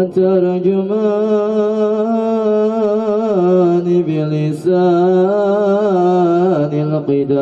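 A man's voice chanting solo in long held melodic phrases with a wavering, ornamented pitch. There are two long phrases, with a short break for breath about four seconds in.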